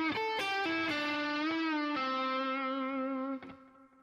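Electric guitar playing a phrase slowly: a few short notes in quick succession, then a long note held with vibrato that stops about three and a half seconds in.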